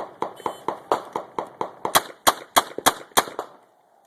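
Shot timer beep, then a string of revolver shots; the loudest five or six come about a third of a second apart in the second half, mixed with many fainter shots close together, and the firing stops near the end.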